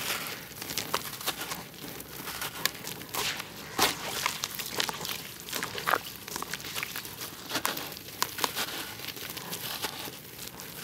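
A wet, gritty block of moulded red dirt being crushed and crumbled by hand: irregular crunching and crackling as the clay and grit break apart, with many sharp cracks scattered throughout.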